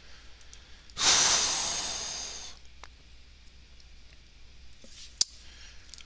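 A man's loud sigh: one long exhale that starts about a second in and fades over a second and a half. One sharp click comes near the end.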